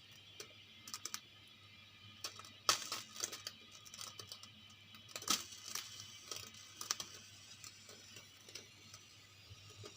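Faint, scattered light clicks and crinkling handling noises of a plastic teaspoon and a bottle as tincture is poured into the spoon.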